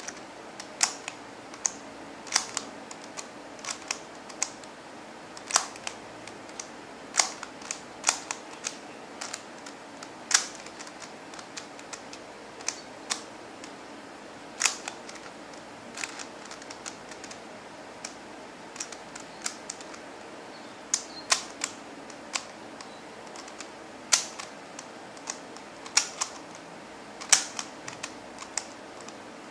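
Plastic pieces of a stickerless QiYi MoFangGe Master Pyraminx, a four-layer pyramid twisty puzzle, clicking as its layers are turned by hand: irregular sharp clicks, single or in quick clusters, with short pauses between turns.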